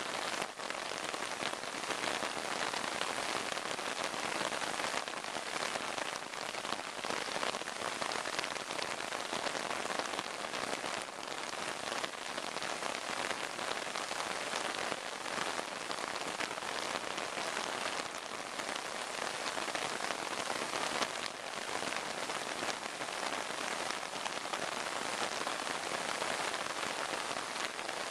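Torrential rain pouring onto a river, a steady even hiss with no let-up.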